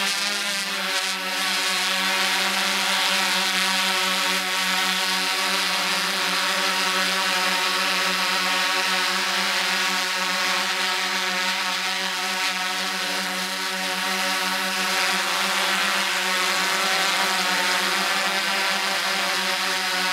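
A quadcopter drone's propellers and motors whirring in a steady hum that holds one pitch throughout.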